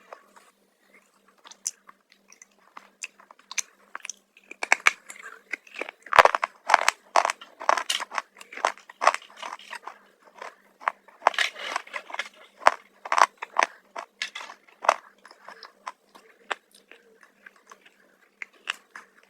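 Crunchy black chips being bitten and chewed close to the microphone: many rapid, sharp crunches that build up a few seconds in and thin out near the end.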